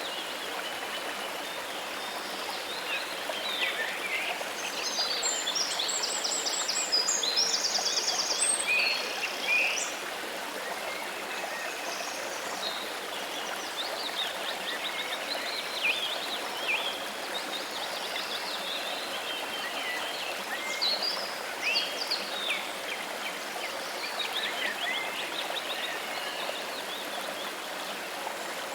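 Steady rush of running water, like a stream or small waterfall, with birds singing over it. A burst of rapid trilling calls comes about five to ten seconds in, and scattered chirps follow.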